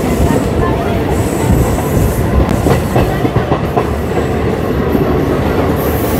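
Running noise of a DMU passenger train at speed, heard from on board: a steady rumble, with a few sharp clicks of the wheels over rail joints in the middle.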